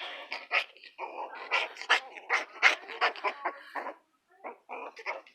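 Puppies playing, making a rapid run of short, sharp dog sounds for about four seconds, then a few more after a brief pause near the end.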